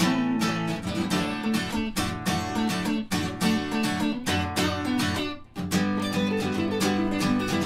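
Acoustic and electric guitar playing an instrumental passage together: steady rhythmic strumming on the acoustic with the electric playing alongside. There is a short break about five and a half seconds in, then the strumming resumes.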